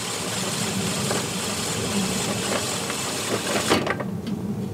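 Cordless drill spinning a cylinder mower's bladed reel against a Mower Mate abrasive strip, a steady motor run with a gritty hiss as the abrasive grinds the pitted blade edges. The hiss cuts off suddenly near the end, leaving a lower hum and a few clicks.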